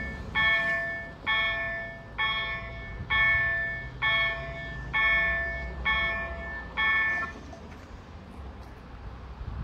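Level-crossing warning bell striking about once a second, eight times, as the barrier arms come down. It stops about seven seconds in, once the barriers are lowered.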